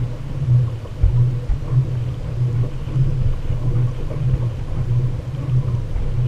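Low, uneven rumble of wind buffeting the camera microphone and water moving against the kayak hull, with a throb that swells and fades about twice a second and a few dull low thumps.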